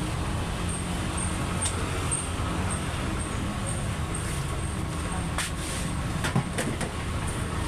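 An engine running steadily, with a row of short high chirps about twice a second through the first half and a few sharp clicks or knocks later on.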